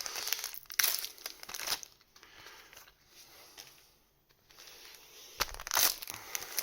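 Crinkling and tearing of a trading card booster pack wrapper as it is handled and ripped open, in bursts over the first two seconds and again about five and a half seconds in.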